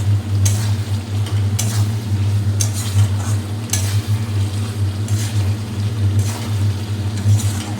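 Spatula scraping and stirring drumstick pieces and spices in a kadai, with a stroke about once a second. A steady low hum runs underneath.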